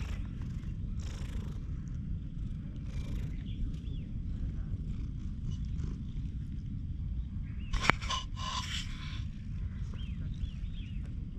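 A cat purring as it is petted: a steady low rumble. About eight seconds in come a sharp click and a brief rustle.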